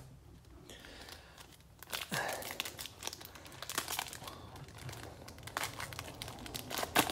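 Foil trading-card pack wrapper crinkling as it is torn open and peeled back. The crackling starts about two seconds in, with a sharp crackle near the end.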